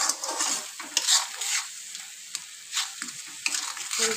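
Onion-tomato masala with freshly added ground spices sizzling in hot oil in a steel kadai, stirred with a steel spatula that scrapes across the pan in uneven strokes: the masala being fried (bhuna) with its spices.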